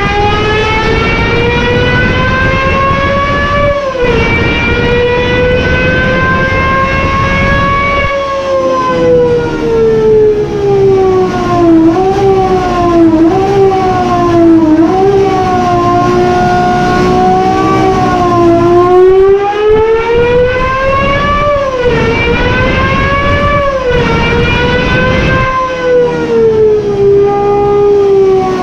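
Gordon Murray T50's Cosworth-built V12 at full throttle on a lap, its high wail climbing with revs and dropping sharply at an upshift about four seconds in. Around the middle come a run of quick dips and blips as it downshifts. It climbs hard again to just past twenty seconds, and more short blips follow near the end.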